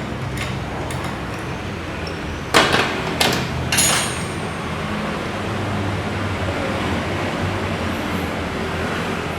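Three sharp hammer blows on metal about half a second apart, the last ringing briefly, over a steady low mechanical hum.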